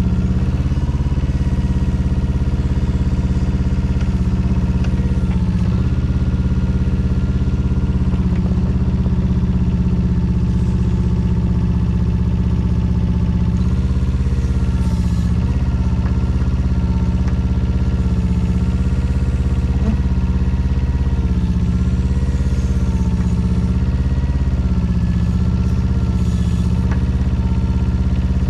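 Small Yanmar diesel engine of a Daewoo Solar 010 mini excavator running steadily, its note dipping briefly several times as the operator works the hydraulic levers and the pumps take load.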